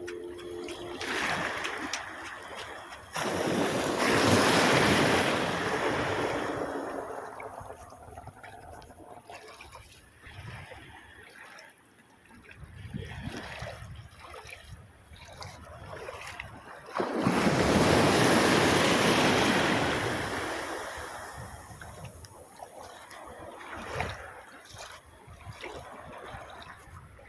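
Sea waves surging in around a wader and washing back, twice: a big wave hits about three seconds in and another about seventeen seconds in, each rising suddenly and fading over a few seconds, with smaller splashing and water movement between.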